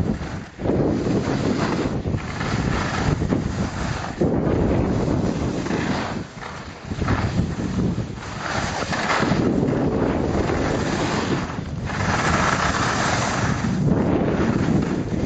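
Wind buffeting the microphone while skiing downhill, a gusty low rumble, with the hiss of skis sliding over the snow swelling in several turns.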